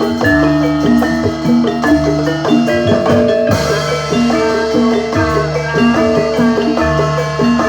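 Javanese gamelan music: struck metal keyed instruments play a repeating melody of short ringing notes over low drum beats, with a brief hissing crash about three and a half seconds in.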